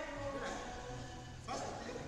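Music playing, with a person's voice mixed in; a new note or voice comes in sharply about a second and a half in.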